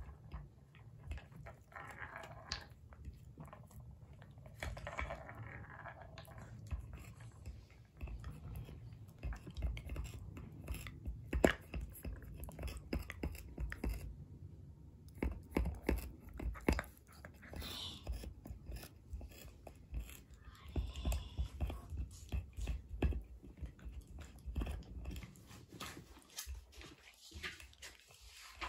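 Dog gnawing and biting on a wooden cat toy tower: irregular sharp clicks and knocks of teeth on wood, with low thumps as the toy is pushed about.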